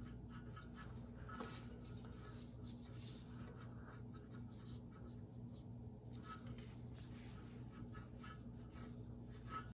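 Faint, irregular scratchy rubbing of rope being fed by hand through the spark plug hole into a small engine's cylinder to lock the piston, over a steady low electrical hum.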